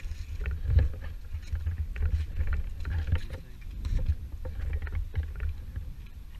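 Low rumble of wind and movement on a helmet-mounted GoPro's microphone, with irregular clicks and knocks scattered through it.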